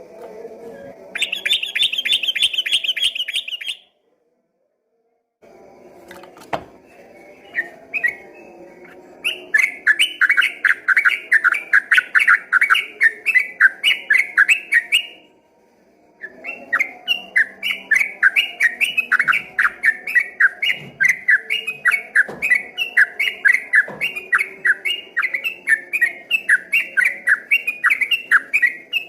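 Yellow-vented bulbul (trucukan) singing its fast 'ropel' song. A short, higher run of notes comes first. Then long strings of quick repeated notes follow at about four a second, broken twice by brief gaps.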